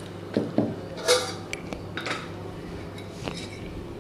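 A spoon clinking and scraping against a metal pan of raw chicken pieces being marinated: a few separate knocks, with a louder scrape about a second in.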